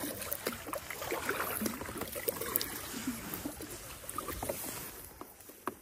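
Water lapping and dripping against an inflatable paddle board in small, scattered splashes, fading near the end, with one sharp knock just before it stops.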